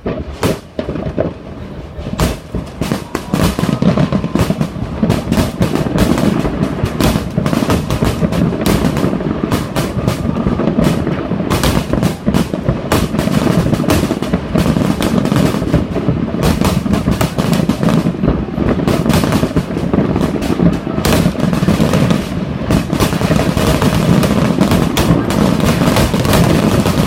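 Aerial fireworks going off in a dense barrage: scattered bangs at first, building within a few seconds into rapid, near-continuous explosions and crackle.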